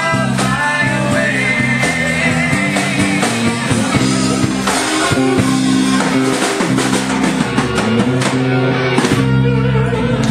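Live Christian rock band playing: electric guitar and drum kit over a steady low bass line, with a voice singing.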